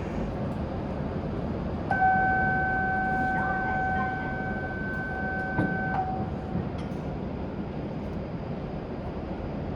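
A steady horn-like signal tone, one pitch with overtones, sounds for about four seconds starting about two seconds in and stops abruptly, over the steady rumble and hum of a shinkansen platform.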